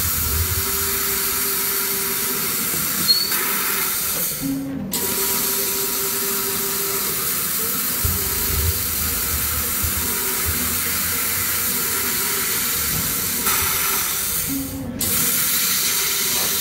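LXJ1325 laser cutting machine cutting a metal tube held in its rotary chuck: a steady hiss of gas blowing through the cutting head. It cuts off briefly twice, about four and a half and fifteen seconds in, each time just after a short low hum.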